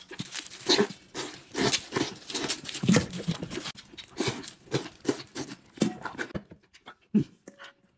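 A man loudly slurping and chewing long noodle strips lifted with chopsticks: a quick irregular run of wet sucks and smacks that thins out to a few soft clicks over the last couple of seconds.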